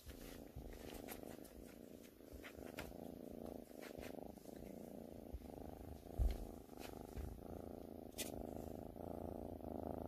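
A cat purring steadily, close up, with a few faint clicks over it.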